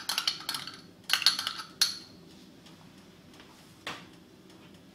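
A small glass dish clinking and tapping against the rim of a sauté pan as its contents are tipped in: a quick run of clinks over the first two seconds, then a single knock near the end over a faint steady hiss.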